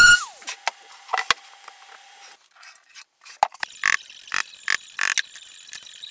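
A random orbital sander cuts off at the very start, its whine falling away. About three and a half seconds in, a hammer taps small nails into an MDF sheet: five quick, sharp strikes.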